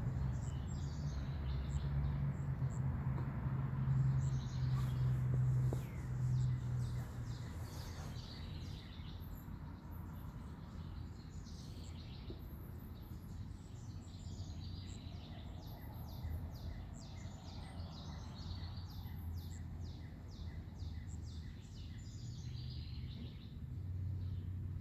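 Birds chirping in quick runs of short high notes over a steady low hum, which is loudest in the first few seconds.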